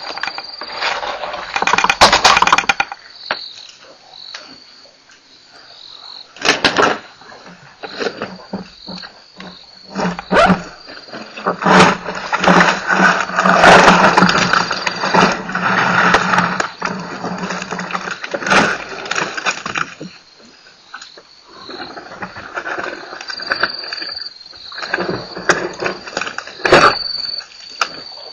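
African elephant tearing bark off a marula tree: bursts of cracking, ripping and snapping, with sharp cracks about 2, 6 and 27 seconds in and a long, dense stretch of tearing from about 12 to 19 seconds in. A steady high tone runs underneath.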